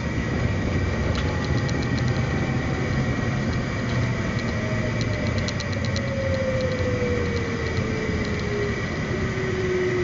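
Cockpit noise of a CRJ 700 rolling out on the runway after landing: a steady rumble and rush under a whine that falls slowly and evenly in pitch as the rear-mounted GE CF34 turbofans spool down.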